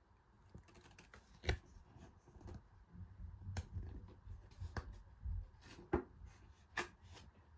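Hands rustling and handling paper and packaging, with about five sharp clicks or taps among the rustles.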